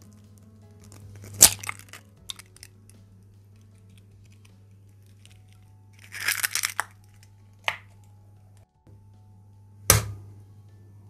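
Eggshells cracked against the rim of a glass bowl. There is a sharp crack about a second and a half in, then a short crackle of shell being broken apart midway, and another sharp crack near the end, over a steady low hum.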